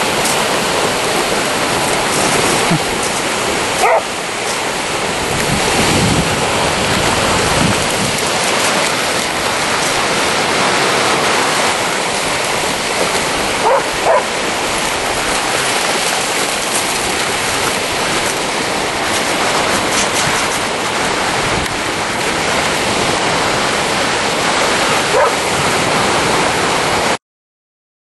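Sea surf washing steadily onto the beach, with a dog barking a few short times: once about four seconds in, twice about halfway through, and once near the end. The sound cuts off abruptly near the end.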